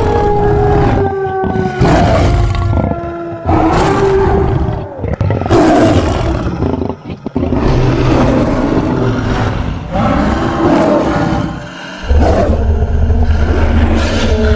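A string of big-cat-style roars and growls, a made-up creature's calls built from American lion and sabre-toothed cat (Smilodon) sound effects. About seven calls follow one another, roughly one every two seconds, some with a pitch that slides down, over a deep rumble.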